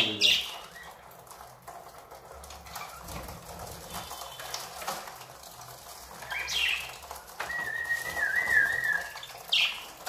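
Budgerigars in a small wire travel cage fluttering their wings and giving a few sharp chirps, with a short warbling whistle in the second half.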